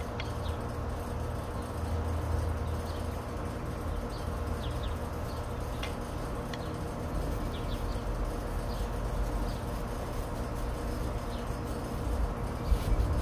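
Outdoor ambience: a steady low rumble with small birds chirping every so often, and a couple of louder bumps near the end.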